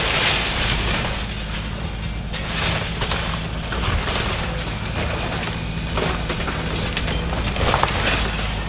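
Case CX160C hydraulic excavator's diesel engine running steadily while its bucket and thumb tear into a wooden outbuilding: wood cracking and splintering and debris crashing down in several bursts, near the start, about three seconds in, about six seconds in and near the end.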